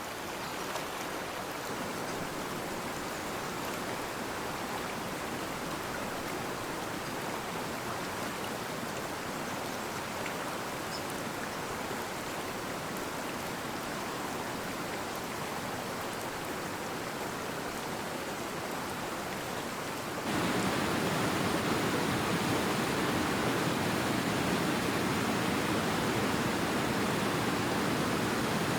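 Steady rushing water of a stream, without pauses, stepping up suddenly about 20 seconds in to a louder, fuller rush.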